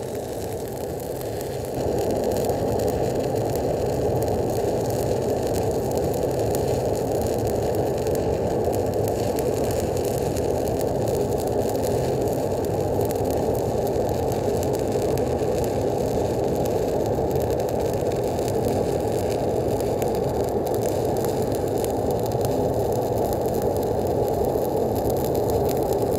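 Stick (SMAW) welding arc burning steadily during an overhead root pass, a continuous crackle over a low drone, getting louder about two seconds in.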